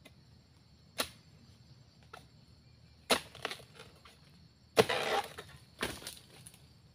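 Long-handled harvesting chisel chopping into the frond bases of an oil palm to cut free a fruit bunch: single sharp chops about a second in and again around three seconds, then a longer, louder cracking about five seconds in and another chop just after. Insects keep up a steady high-pitched hum underneath.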